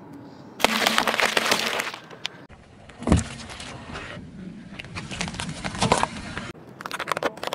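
A car tyre crushing food items in a quick series: a dense crackle of eggshells breaking under the wheel, a short dull pop of a milk carton bursting, then clusters of sharp crunching as Brussels sprouts are squashed.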